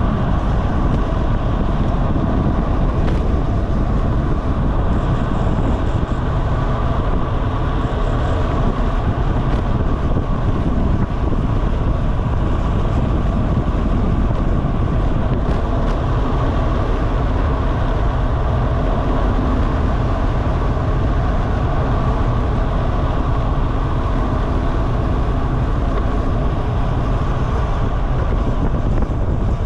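Steady, loud rush of wind buffeting the microphone of a camera riding on a bicycle descending at speed.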